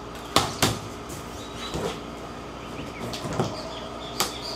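Cardboard shipping box being cut and opened: about five short, sharp snaps and thumps as the tape gives and the flaps are pulled apart.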